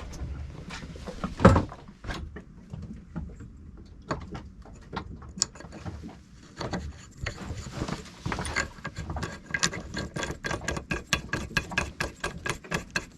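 Metal clicking and clinking of hands and tools working on the cable mechanism inside an Edson steering pedestal, with a single louder knock early and, in the second half, a quick, fairly regular run of sharp clicks like a ratchet.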